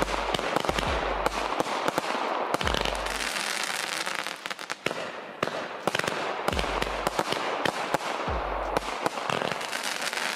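NICO Penalty 67-shot consumer firework battery firing: a rapid run of sharp launch pops and crackling over a hiss, with a few deep thumps spaced through it.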